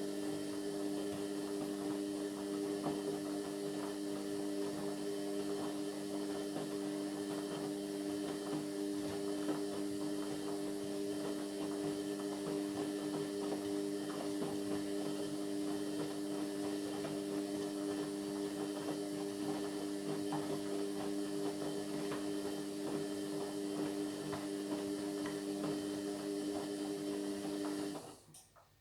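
Indesit MyTime washing machine running with a steady electric hum and a light rattle, cutting off suddenly near the end.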